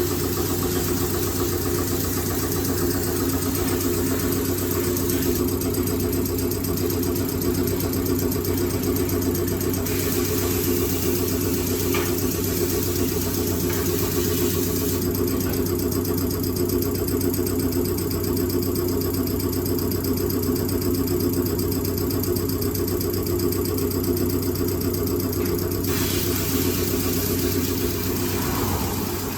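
Isuzu Forward truck's diesel engine idling steadily, with a higher hiss above it that shifts a few times.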